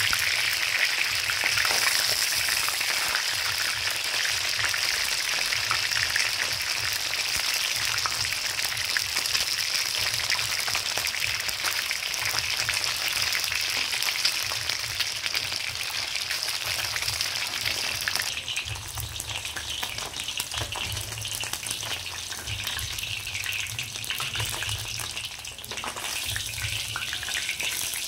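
Fish pieces frying in hot oil in a wok, a steady dense crackling sizzle that turns quieter and duller about two-thirds of the way through.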